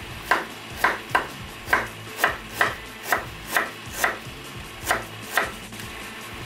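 Kitchen knife chopping green onions and herbs on a wooden cutting board: about eleven sharp chops at roughly two a second, stopping near the end.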